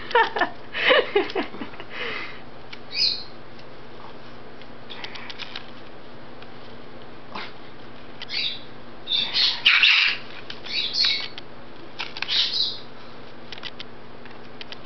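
Goffin's cockatoo making scattered short, high-pitched sounds while leaning and swinging on its hanging rope perch. The sounds come in clusters a few seconds apart, the loudest about two-thirds of the way through.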